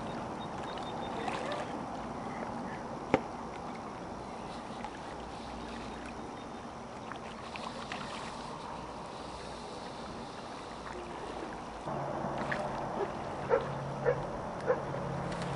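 River water running and lapping against a drift boat, a steady wash of noise. A low steady hum comes in about twelve seconds in, and a few sharp clicks sound near the end.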